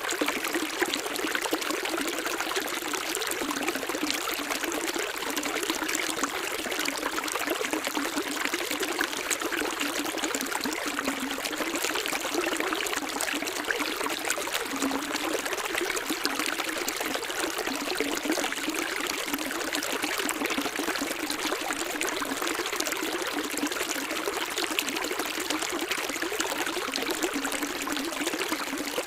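Running water of a small stream, a steady trickle and splash with no deep rumble.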